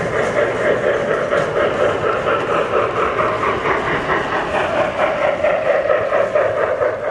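Model steam locomotive and its string of cars running past on the track, a steady mechanical running noise from the motor and wheels on the rails.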